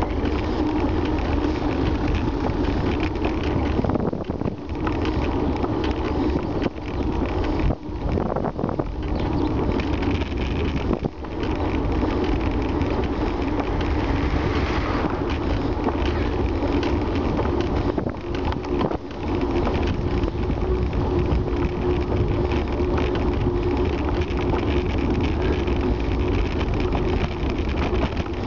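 Wind buffeting a bicycle-mounted camera's microphone while riding along a road, with a low rumble from the tyres on tarmac and a steady hum. A car passes the other way about halfway through.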